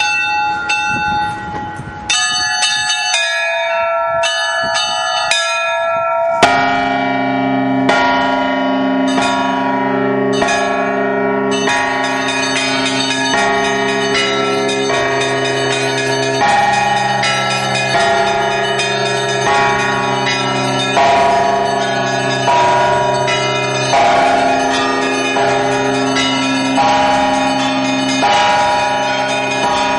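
Russian Orthodox church bells rung by hand, with the clappers pulled on ropes. At first only the small treble bells chime in quick strikes; about six seconds in the deeper bells join, and a full, steady peal carries on with regular strokes.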